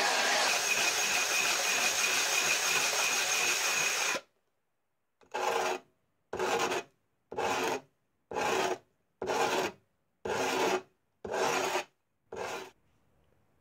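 A Dremel rotary tool with a diamond disc runs on glass with a steady high whine, then stops about four seconds in. After a short pause come eight rasping strokes by hand, about one a second, as the cut glass is rubbed against an abrasive.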